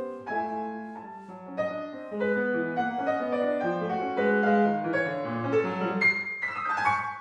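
Grand piano played solo: a loud chord struck at the start, then busy, fast-changing passages of notes that grow louder, with a sharp bright accent about six seconds in.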